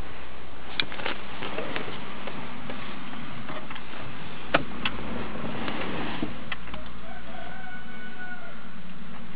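A rooster crowing once, faintly, about seven to eight seconds in, over a steady background hiss, with a few sharp clicks earlier on.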